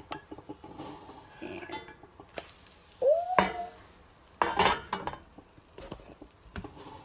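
A spatula scraping under a pancake in a frying pan over a gas burner, with light sizzling. A brief rising tone comes about three seconds in, and a louder scrape and clatter of pan and spatula follows about four and a half seconds in as the pancake is flipped.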